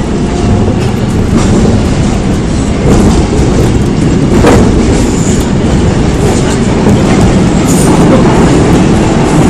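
Seoul Metro Line 4 4000-series electric train running along the track: a steady, loud rumble of wheels on rail, with a single sharp knock about four and a half seconds in.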